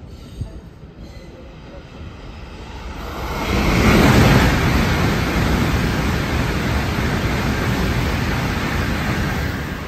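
An N700-series Tokaido Shinkansen train passing through the station at speed without stopping. A rising rush of air and wheels swells about three seconds in, is loudest as the nose goes by, then holds as a steady rushing noise while the cars stream past, easing only at the very end.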